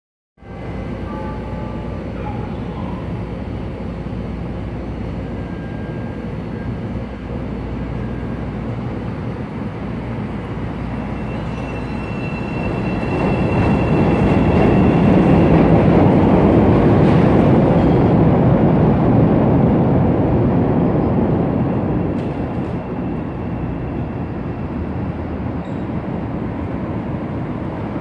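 Chicago elevated 'L' train passing overhead over a steady city hum: its rumble builds about halfway through, holds for several seconds and fades, with a thin squeal from the wheels as it comes in.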